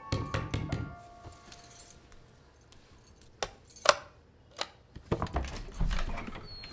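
Metal clicks and rattles of a door's bolt and lock being undone, a few separate sharp clicks with the loudest about four seconds in, then the door being pulled open. A sustained music tone fades out in the first second.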